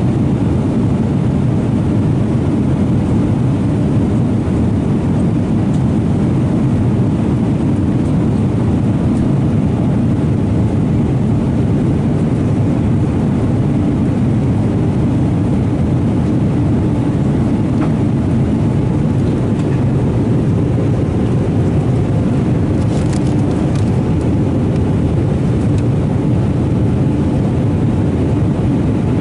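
Airbus A320 passenger cabin in flight: the steady, low-pitched drone of airflow and engines, even in level throughout.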